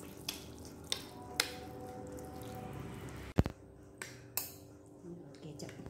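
Metal spoon clicking and clinking against a glass soup bowl, a few light taps spread through, with one louder knock about three and a half seconds in.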